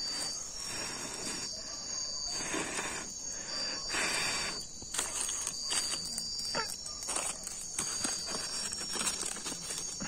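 Crickets trilling in a steady, high insect chorus, over irregular rustling and light snapping of wet leaves and twigs being handled on a smouldering fire.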